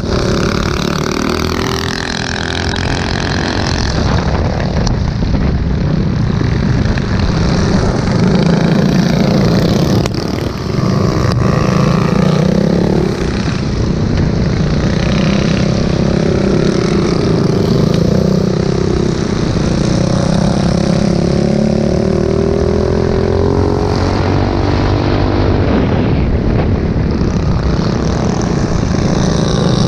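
Mini bike's small engine running hard under racing load, its pitch climbing and dropping again and again as the throttle opens and closes through the course.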